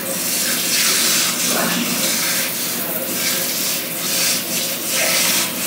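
Tap water running and splashing as rice is rinsed in a bowl at the sink, the noise swelling and easing roughly once a second.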